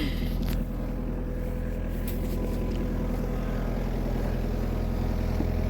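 Excavator's diesel engine running steadily at idle, with no hammering from the breaker.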